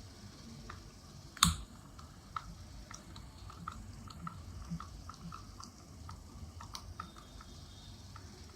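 Light plastic clicks and rattles from the parts of a table fan being handled and worked loose by hand during disassembly, with one sharp knock about a second and a half in.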